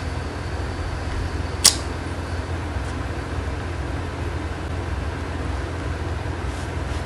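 Steady low hum and hiss of room background noise, with one sharp click about a second and a half in.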